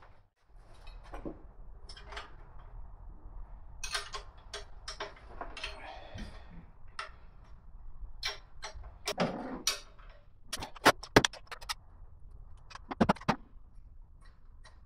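Metal hand tools clinking and knocking against the exhaust of a Ford Y-block V8 as a wrench is worked on the exhaust bolts. Quick runs of sharp metallic clicks come past the middle and again near the end.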